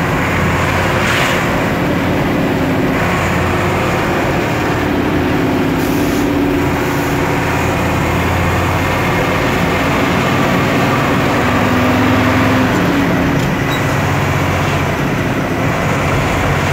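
Fire truck engine running under way, with steady road noise; the engine note rises and falls slightly with speed.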